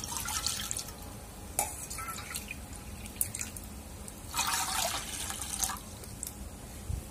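Water poured from a steel bowl into an empty aluminium frying pan, splashing onto the pan's metal bottom. There are two pours, the second starting about four seconds in.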